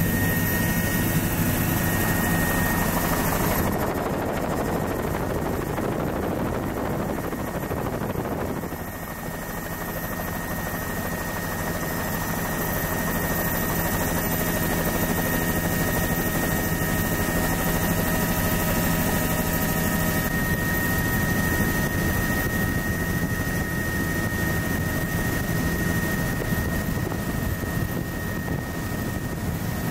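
Tour helicopter in flight, heard from inside the open-door cabin: steady rotor and turbine noise with a constant high whine, dipping slightly in loudness about nine seconds in.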